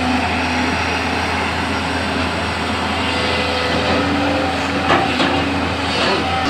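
JCB backhoe loader's diesel engine running steadily under work, with three short metallic clanks near the end.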